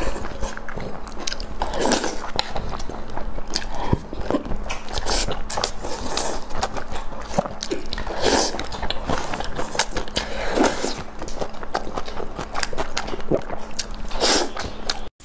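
Close-miked eating: wet chewing and lip smacking with many small mouth clicks, broken every couple of seconds by a louder slurp as braised pork and stir-fried greens are sucked in off chopsticks.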